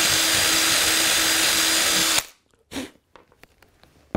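Makita 18V cordless drill running steadily, boring down through the foam trackbed and baseboard, then stopping abruptly about two seconds in. A brief short noise and a few light clicks follow.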